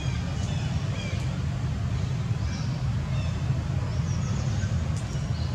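Outdoor ambience: a steady low rumble throughout, with scattered short, faint, high chirps, likely birds.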